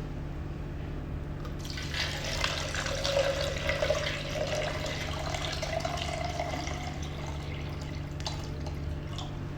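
Water pouring through a fill tube into a cryolipolysis machine's water tank, starting about a second and a half in, with a steady low hum underneath.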